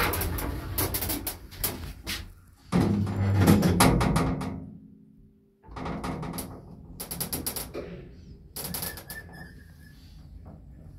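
Multi-panel sliding car doors of an Elszyk lift with Zremb doors closing with a clatter of knocks and rattles. After a brief lull the lift's machinery clicks and clunks as the car starts to move.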